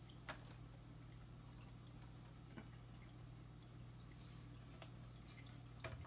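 Near silence: a faint, steady low hum of running saltwater aquarium equipment, with a few faint ticks.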